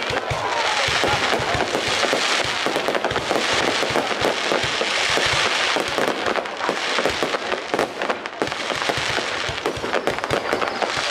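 Fireworks going off in rapid succession: many overlapping bangs and crackles with no pause between them.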